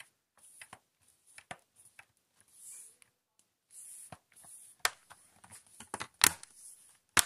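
Hard-plastic bottom case of an HP Pavilion 15 Power laptop being pressed back on by hand, its clips snapping into place: a string of sharp clicks, the loudest about five, six and seven seconds in, with plastic rubbing between them.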